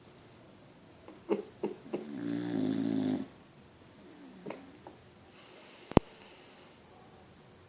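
Heavy snoring: a few short rattling snorts, then a long, loud pitched snore on the in-breath, and a shorter snort a little later. A single sharp click sounds about six seconds in.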